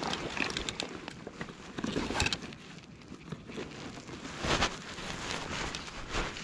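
Small, irregular water splashes at the surface beside a float tube while a fly line is handled, with crackly rustling close to the microphone and a couple of louder splashes about two seconds in and about four and a half seconds in.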